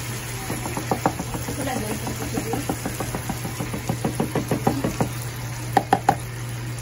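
Silicone spatula knocking and scraping at a carton of all-purpose cream as the cream is squeezed out into a pan of sauce: a quick run of small knocks and wet glugs, then three sharper taps near the end. A steady low hum from the cooker runs underneath.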